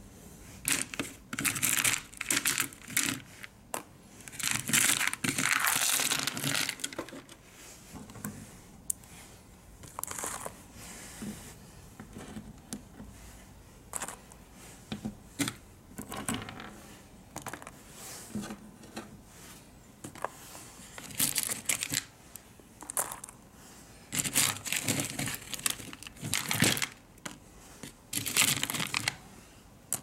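Hands handling crinkling wrapping material, with rustling, tearing and light clinks of small hard objects, in irregular bursts that are busiest in the first few seconds and again near the end.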